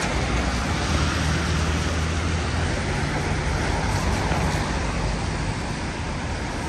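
Road traffic on a wet city street: a steady hiss of tyres with the low hum of vehicle engines, one of which fades out a few seconds in.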